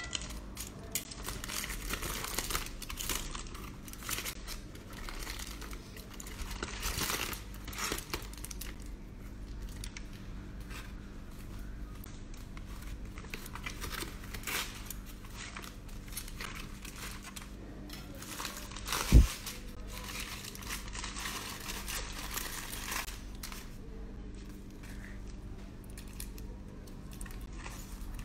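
Aluminium foil wrapping crinkling and tearing in irregular rustles as hands peel it open. One sharp thump about two-thirds of the way through is the loudest sound.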